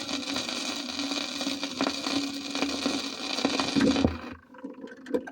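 Surface noise of a 78 rpm shellac record as the side ends: an even hiss with a faint steady tone under it, which cuts off suddenly about four seconds in. A few small clicks and knocks follow.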